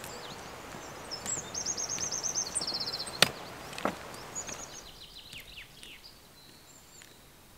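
Small songbirds singing: a fast run of repeated high notes, then a few quick descending whistles. There is a steady outdoor hiss that fades about five seconds in. One sharp knock comes about three seconds in and a softer one follows just after, fitting a trekking pole striking the stony trail.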